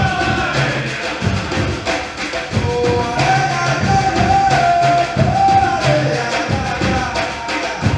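Percussion group playing, with deep bass drums striking in a repeating rhythm and voices singing held notes over it.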